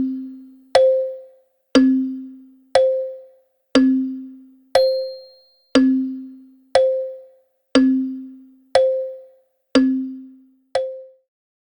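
Wall clock ticking once a second, each tick a sharp click with a brief ringing tone that alternates low and high, tick-tock. The ticking stops about eleven seconds in.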